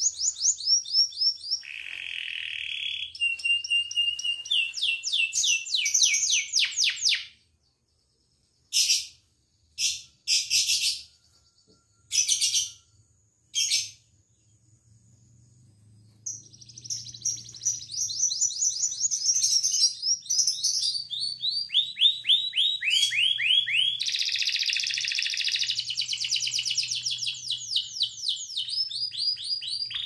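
Domestic canary singing, its song made of fast trills of rapidly repeated notes and shifting phrases. The singing breaks off about seven seconds in, with only four short bursts over the next several seconds, then resumes and runs on unbroken through the second half.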